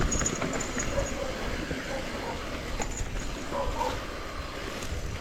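Rough rumble of wind on the microphone and a rattling ride over a trail on an electric mountain bike, with scattered clicks and knocks and a few short high squeaks.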